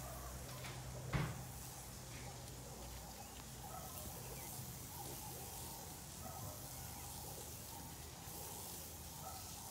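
Quiet outdoor background with scattered faint short chirps and one sharp knock about a second in.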